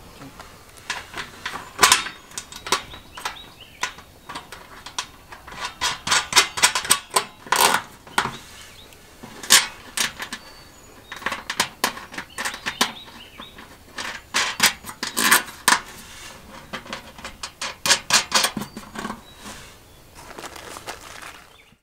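Irregular metal clicks and clinks of nuts and bolts being fitted by hand on the corrugated metal panels of a raised garden bed.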